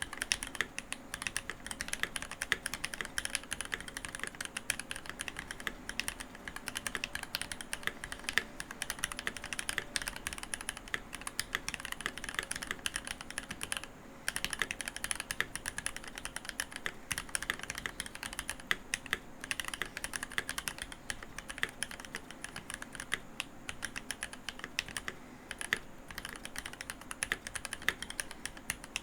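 Fast, continuous typing on a Keychron V1 mechanical keyboard with Gateron Cap Milky Yellow linear switches and GMK keycaps, a dense stream of key clacks with a brief pause about halfway through.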